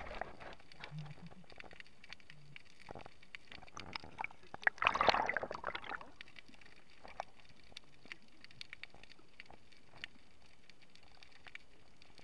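Muffled underwater sound picked up by a submerged camera: faint scattered clicks and crackles over a low water hiss, with a louder rushing, gurgling burst about four and a half seconds in that lasts around a second.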